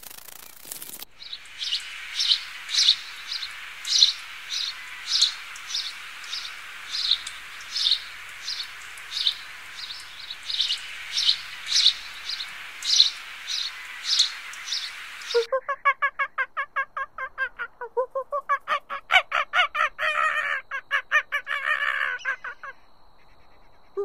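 Taiwan blue magpie calling: a long run of sharp, high calls about two a second, changing about two-thirds of the way in to a faster, harsher rattling chatter.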